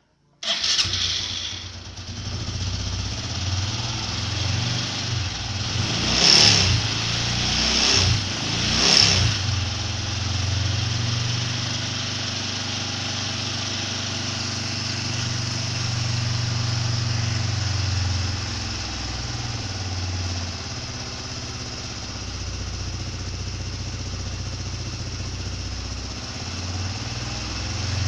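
Motorcycle engine idling, blipped three times in quick succession about six to nine seconds in, then settling back to a steady idle.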